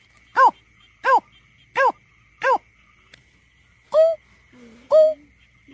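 Greater painted-snipe giving a series of short hooting calls. Four hoots each rise and fall in pitch, about 0.7 s apart, then after a pause of about a second come two hoots of a different, hooked shape.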